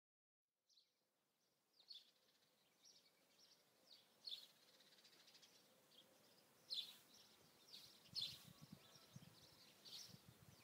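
Birds chirping faintly outdoors: short, high chirps at irregular intervals, about one a second, starting about a second in over a quiet background.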